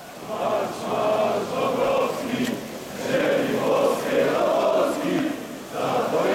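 Large crowd of marchers, mostly men, chanting a slogan in unison, the phrase repeated about every three seconds.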